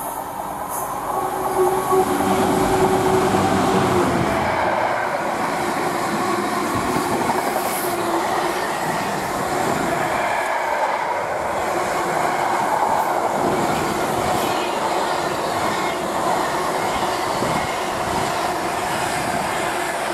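A Class 66 diesel-electric locomotive, with an EMD two-stroke V12 engine, passes slowly at the head of a container freight train. Its engine is loudest over the first few seconds, then the container wagons roll past steadily.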